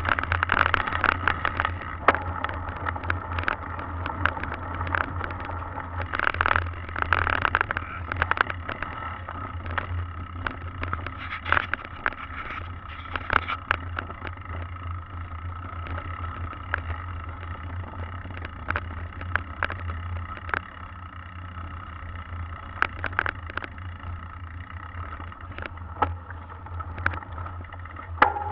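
Mountain bike riding over wet mud and then gravel: tyre noise with frequent rattles and knocks from the bike over bumps, over a steady low rumble. It is loudest and busiest in the first several seconds on the muddy trail.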